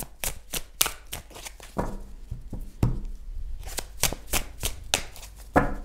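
A deck of cards being shuffled by hand: a quick, irregular run of crisp card snaps and flicks.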